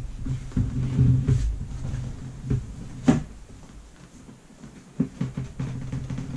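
Avid Carp Quick Up Session Organiser being folded down by hand: a sharp click of its collapsing frame about three seconds in, then a few lighter knocks around five seconds.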